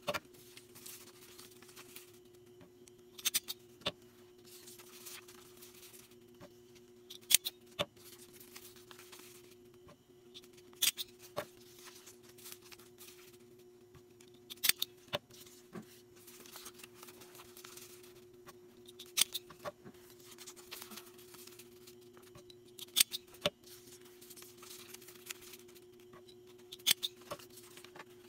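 Scissors snipping while orders are packed, one or two sharp snips about every four seconds with soft handling noise between, over a faint steady hum.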